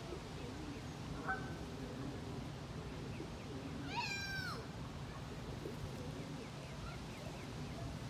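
A gull's drawn-out mewing call about halfway through, rising then falling, with a shorter call about a second in, over steady low background noise.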